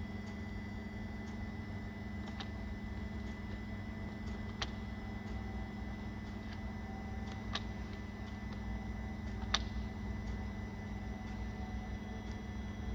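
Steady electrical and mechanical hum of a powered Hoefler EMZ 632 gear checking machine and its computer, with a faint high whine and a few small scattered clicks.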